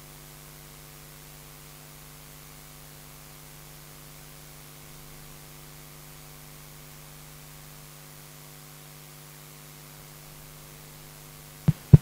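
Steady electrical hum and hiss from the sound system while the wireless microphone is dead, its battery run out. Near the end, a couple of sharp taps as a replacement microphone is tried.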